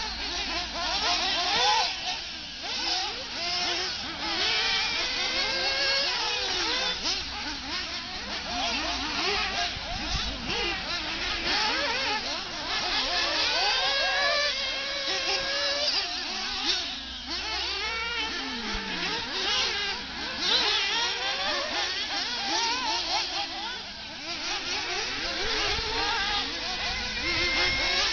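Several radio-controlled off-road race buggies running on a dirt track, their motors rising and falling in pitch as they accelerate and slow through the corners, with several going at once.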